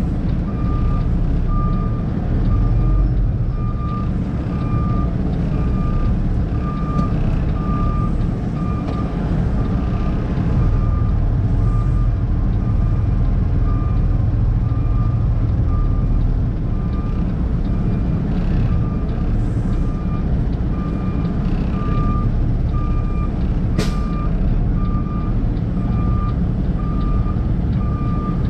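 Backup alarm beeping steadily, about once a second, over the low rumble of a diesel engine running. A single sharp click sounds near the end.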